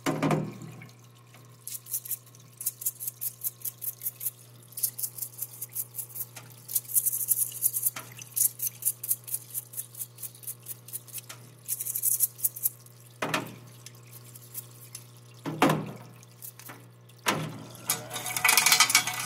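Small brush scrubbing the caked-on carbon fouling off an AR-15 bolt carrier group in a parts washer, in quick rasping strokes about three a second. Under it are the washer's steady hum and running cleaning liquid, with a few knocks as parts are set down on the metal tray near the end.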